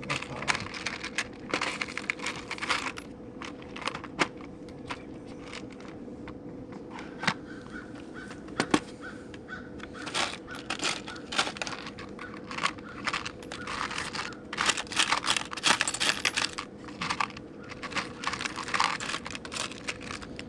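Small metal screws and hardware clinking and rattling as they are rummaged through by hand, many quick clicks coming in clusters, over a faint steady hum.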